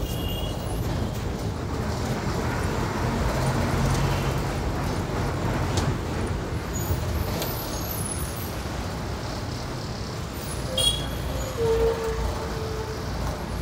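Bus running along the highway: steady engine and road noise, with a short horn toot near the end.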